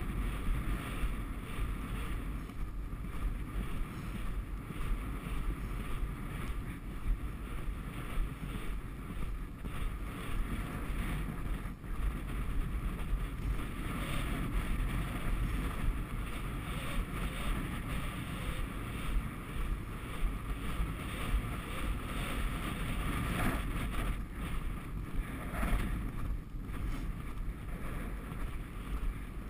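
Heavy wind noise buffeting the microphone in strong gusts of about 27 mph, a steady low rumble that rises and falls.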